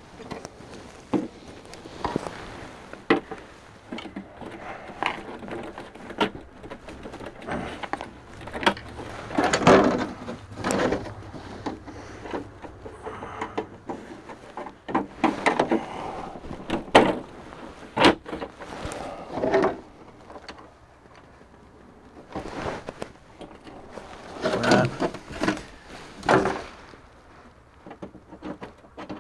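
Irregular clicks, knocks and scraping rattles of Freightliner FLD dash panels being handled and fitted into place, with a few louder clusters of knocks partway through.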